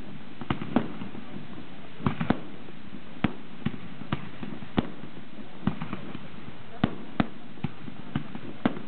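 Aerial firework shells bursting in a fireworks display: sharp bangs at an irregular pace, about two a second, over a steady background rumble of the show.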